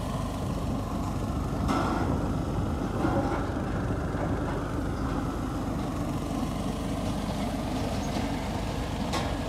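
Tube-well drilling rig's diesel engine running steadily, with water gushing out of the pipe into the mud pit. Two short knocks, one about two seconds in and one near the end.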